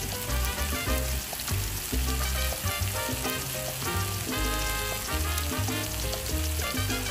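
Marinated Korean beef short ribs (galbi) sizzling steadily on a grill pan over a portable camping stove, under background music with a steady bass beat.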